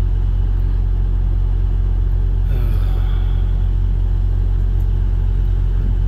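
School bus's diesel engine idling: a steady, deep, even rumble.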